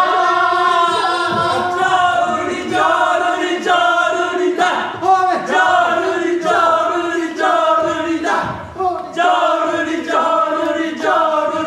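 A group of voices singing together in unison, a chant-like song in held notes that step from pitch to pitch.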